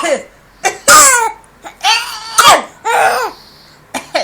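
A baby coughing: a short, harsh cough about a second in, among several brief high-pitched squeals and laugh-like vocal sounds.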